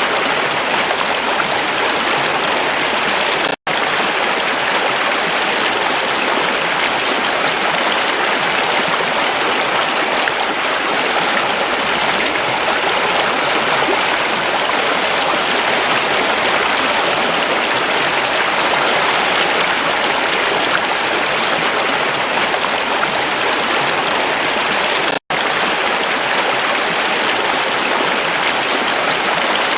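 River water flowing and rushing over rocks in a steady, unbroken wash, cut by a split-second gap of silence twice.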